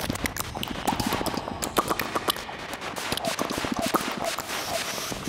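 Experimental noise music for voice and live electronics: a dense, irregular stream of rapid crackling clicks, with short chirping pitched fragments scattered through it.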